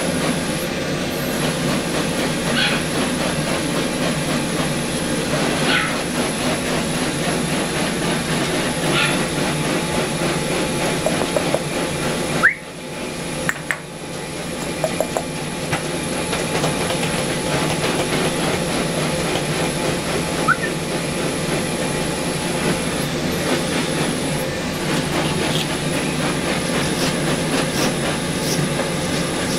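A steady, loud mechanical hum and rush, as from a running fan or blower motor, with a constant high-pitched whine over it. It drops briefly near the middle, and a few short high squeaks sit on top.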